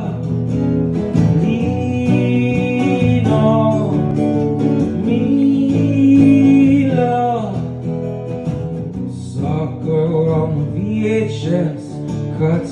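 Acoustic guitars playing a song's intro live, with a voice holding and sliding between wordless notes.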